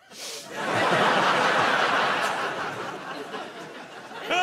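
Studio audience laughing, swelling within the first second and dying away over the next few seconds.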